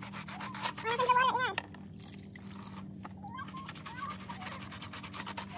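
A stiff dish brush scrubbing a wet, soapy rubber car floor mat in rapid, scratchy strokes. A brief, high, wavering voice-like cry about a second in is the loudest sound, with fainter ones later.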